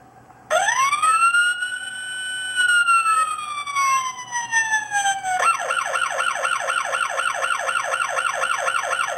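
Electronic American police siren from a Jada Toys radio-controlled Ford Police Interceptor. About half a second in, a wail rises, holds and slowly falls; a little past halfway it switches to a fast yelp of about four to five pulses a second.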